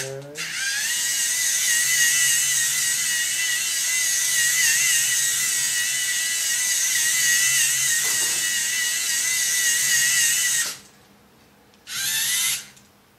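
LEGO NXT motors and gear train whining as the small robot car drives. The whine rises in pitch as the motor spins up, runs steadily for about ten seconds and cuts off, then a short second burst of driving comes near the end.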